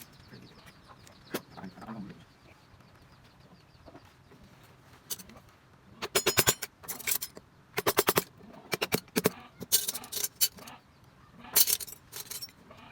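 Hand carving: a mallet striking a wood-carving chisel in quick clusters of sharp knocks, starting about six seconds in.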